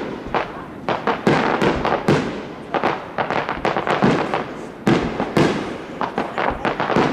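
Aerial fireworks display: shells bursting in quick succession, several loud bangs a second with crackling in between.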